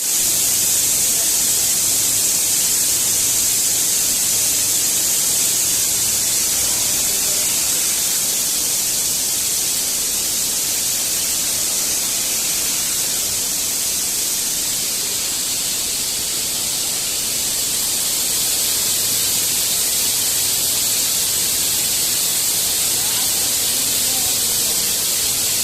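Bag sewing machine running continuously: a steady hiss with a faint low hum underneath, unchanging throughout.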